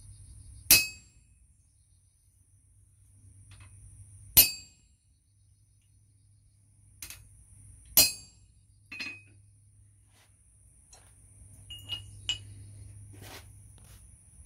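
Three sharp, ringing hammer blows on a hand-held chisel set on steel over an anvil, about three and a half seconds apart. They are followed by a few lighter metal clinks as the hammer and tongs are handled.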